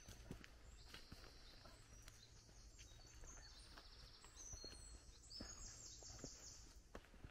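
Faint woodland birdsong: several small birds giving high, fast trills and chirp series. Under it are soft footsteps on a dirt track at walking pace.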